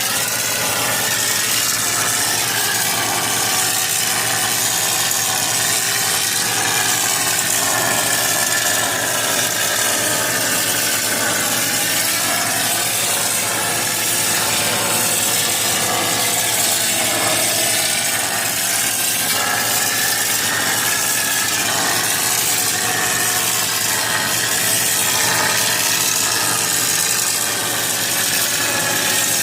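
Turbosol mortar sprayer at work spraying wall plaster: the machine running steadily under a loud, continuous hiss.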